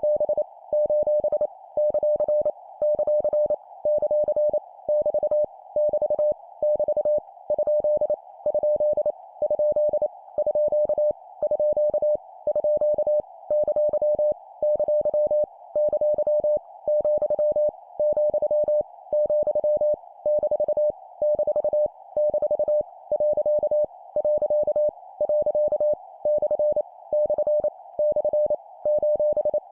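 Morse code (CW) practice tone keyed at 25 words per minute, sending punctuation characters as quick dots and dashes of a single steady beep with short pauses between characters. A steady band of hiss lies under the keying.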